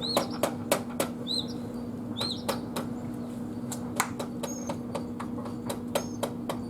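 Irregular sharp clicks and taps of hand tools as a motorcycle's front fork is worked on. A bird chirps a few times in the first half, with short whistled notes later, over a steady low hum.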